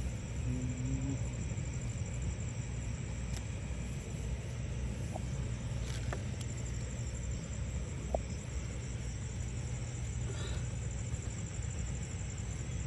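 Night outdoor ambience: a steady low rumble, with insects trilling high and a few faint clicks.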